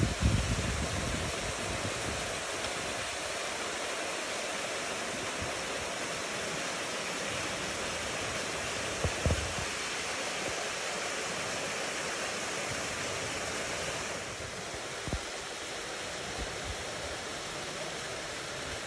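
Janet's Foss waterfall: a steady rush of water falling into its plunge pool. It drops a little in level near the end, and there are a few brief low bumps.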